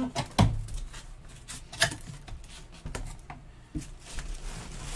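Plastic-bagged football helmet being pulled out of its cardboard box: crinkling plastic and cardboard rubbing, with a few sharp knocks, the loudest a little under two seconds in.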